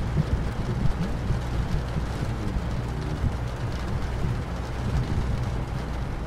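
Heavy rain and wind ambience: a steady hiss over a deep, even rumble.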